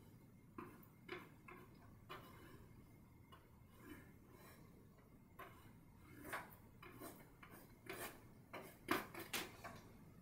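Paintbrush dabbing and scrubbing oil paint onto a canvas panel: a run of faint, irregular scratchy taps that come closer together and grow louder near the end.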